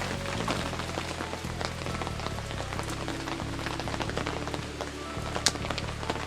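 Rain falling steadily, with many separate drops ticking onto a surface and one sharper drop about five and a half seconds in. Quiet background music plays underneath.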